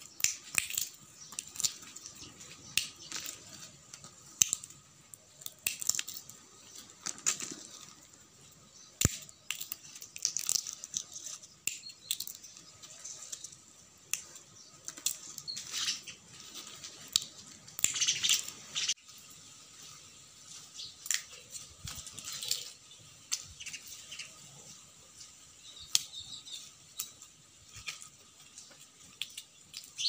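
Dry peanut pods being cracked open by hand, the shells snapping and crackling in irregular clicks, with pods rustling against each other.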